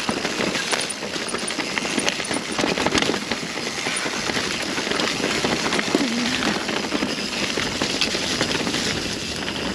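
Mountain bike being ridden down a rough dirt trail: a steady rush of tyre and trail noise with constant rattling and clattering from the bike over bumps.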